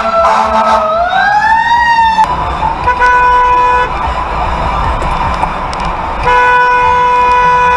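An emergency-vehicle siren wails, its pitch dipping and then rising, until it cuts off about two seconds in. After that a vehicle horn honks twice: a short blast at about three seconds and a longer one from past six seconds.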